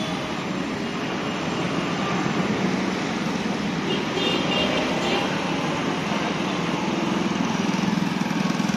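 Busy city street traffic: a steady mix of engines, with a small engine's fast putter coming up close near the end.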